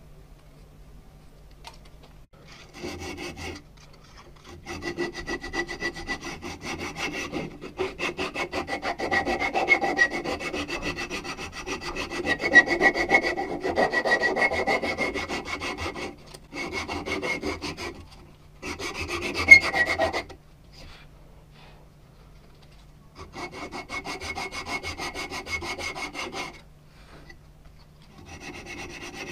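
Wooden hammer handle being sanded with a strip of abrasive cloth pulled back and forth around it, shoeshine-style: quick rubbing strokes in runs of a few seconds with short pauses between them.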